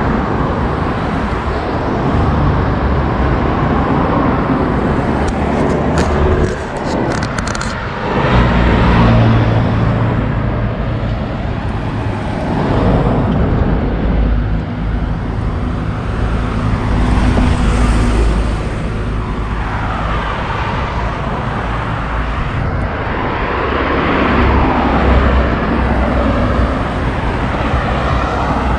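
Street traffic: cars and vans driving past one after another, each rising and fading as it goes by over a steady low engine hum.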